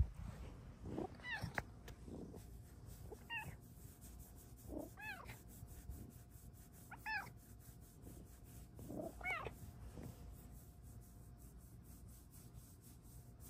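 A Bengal cat meowing five times, short meows about two seconds apart, each rising then falling in pitch.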